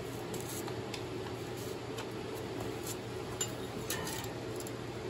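Low steady hum of room tone with a few faint, light clicks from handling a tape measure against the metal mower deck.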